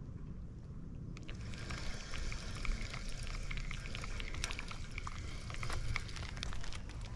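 Spinning reel being cranked to retrieve line: light, rapid clicking and ticking starting about a second in, over a steady low rumble of wind on the microphone.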